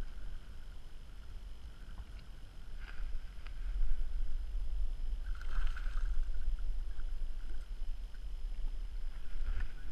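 Wind rumbling on the microphone and small lake waves lapping against an aluminium fishing boat, with a faint steady whine and a few light knocks.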